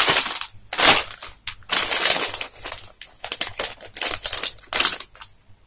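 Plastic crisp packet crinkling and rustling in irregular bursts as a hand rummages through it for a particular crisp.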